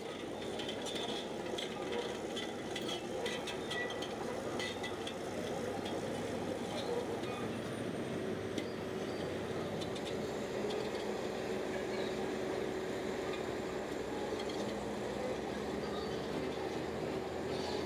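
Shantui bulldozer's diesel engine running steadily while working, with sharp metallic clinks through the first few seconds.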